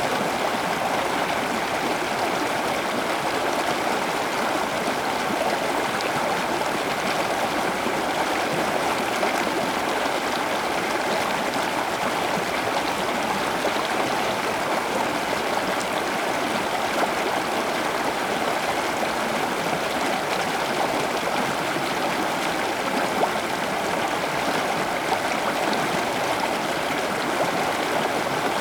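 Steady, even rush of running water, like a small stream or trickling garden water feature.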